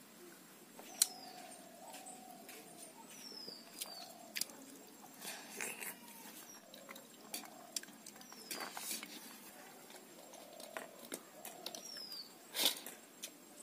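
Eating by hand from steel plates and bowls: scattered clicks and scrapes of fingers and metal, with a sharp clink about a second in and the loudest knock near the end. Short falling bird chirps and occasional hen clucks sound throughout.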